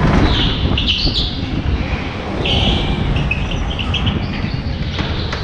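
Go-kart engine running with a low, rough drone, overlaid by high-pitched kart tyre squeals as the tyres slide on the smooth indoor track floor through a bend. The squeals come in two clusters: one in the first second and another from about two and a half to four seconds in.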